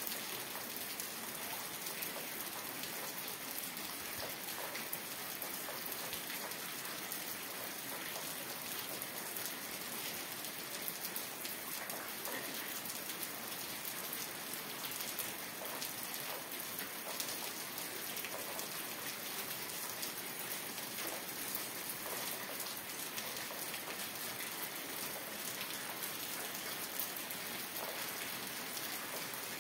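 Steady rain falling, a dense, even patter of drops with no thunder.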